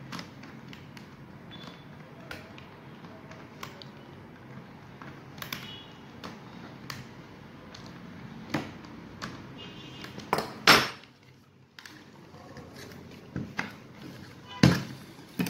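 Small clicks and scrapes of a screwdriver turning screws into a Tefal steam iron's plastic housing. A few louder sharp knocks come about ten seconds in and again near the end.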